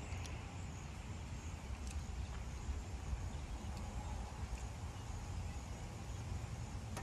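Faint, steady low rumble of outdoor background noise, with a few small clicks.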